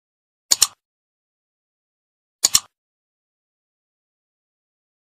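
Computer mouse-click sound effect: two crisp double clicks (press and release), about two seconds apart, over dead digital silence.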